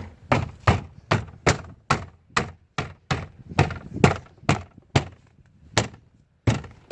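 Palm strikes on a car door trim panel, a quick run of about fifteen thunks with a short pause near the end: the panel's plastic retaining clips being hammered into the door.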